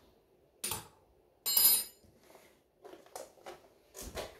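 Kitchen dishes and utensils knocking and clinking on the counter: a few separate knocks, with one louder ringing clink about a second and a half in.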